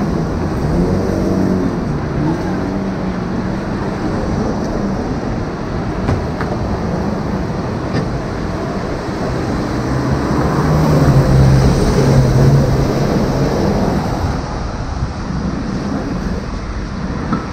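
Road traffic noise: a steady rush of passing vehicles, with one engine swelling louder and passing about ten to thirteen seconds in.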